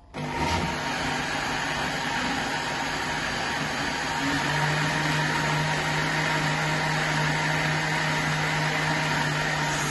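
Countertop electric blender switched on and running steadily, blending blueberries, vanilla ice cream and milk into a shake; its hum grows a little stronger about four and a half seconds in.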